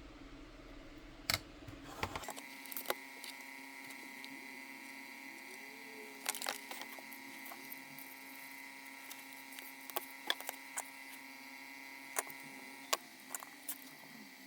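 Steady electrical hum with scattered sharp clicks and light taps.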